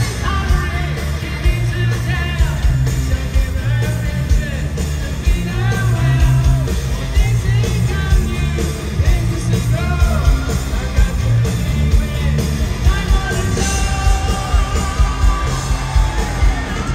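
Hard rock band playing live in an arena, with electric guitars, heavy drums and bass under a male lead singer, recorded from among the audience.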